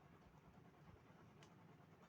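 Near silence: faint room noise, with one small click about one and a half seconds in.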